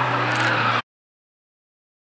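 Nissan S14 drifting: engine held at steady revs under tyre screech, cut off abruptly less than a second in, then silence.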